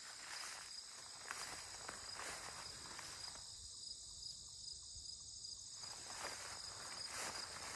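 Crickets trilling steadily in a meadow, a continuous high-pitched chorus. Over it, footsteps rustle through grass, stopping for a couple of seconds midway and then resuming.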